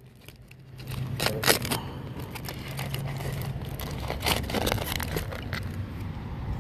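Aluminium foil crinkling and crackling in irregular bursts as a foil-wrapped fish packet is unwrapped by hand, over a low steady hum.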